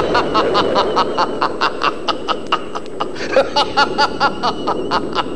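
A man laughing loudly in a long run of rapid 'ha-ha-ha' syllables, about five a second, with a short break around three seconds in: a stage villain's mocking laugh, over faint background music.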